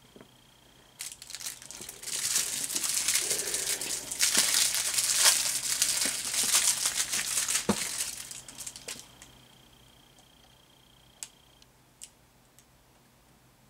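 Packaging material crinkling and crumpling as it is handled, loud for about six seconds before dying away, followed by two light clicks near the end.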